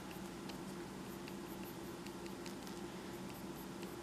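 Mechanical pencil sketching on paper: faint, irregular light scratches and ticks of the lead on the sheet, over a steady low hum.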